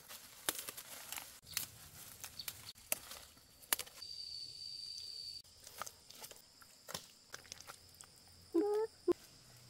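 Crisp snapping of fern stems and rustling leaves as wild fern shoots are picked by hand. A steady high-pitched whine runs for about a second and a half midway, and a short voiced cry comes near the end.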